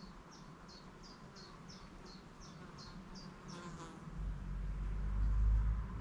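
A rapid series of short, high chirps, each slipping slightly down in pitch, at about three a second; they stop about three and a half seconds in. A low rumble then rises and becomes the loudest sound.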